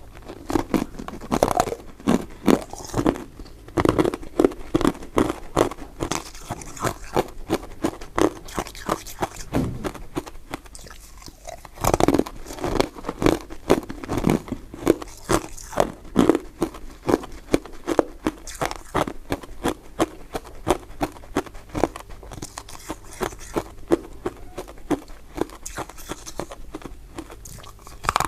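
Close-miked chewing and biting of soft, powder-coated mint sweets: a steady run of irregular moist clicks and crunches, several a second.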